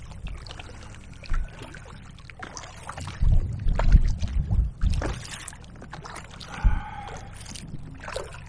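Paddle strokes and choppy waves splashing and slapping against a Bluewave Glider kayak's hull, with gusts of wind rumbling on the microphone about three to five seconds in.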